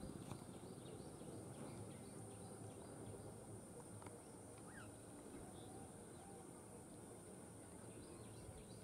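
Faint rural ambience: scattered short bird chirps over a steady, high-pitched insect drone, with no train passing.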